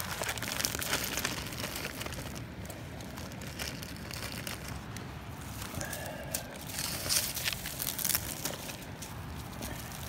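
Plastic packaging crinkling and dry leaves, roots and bark crackling and rustling as a hand pushes a bagged package in among tree roots and pulls bark over it, in irregular bursts.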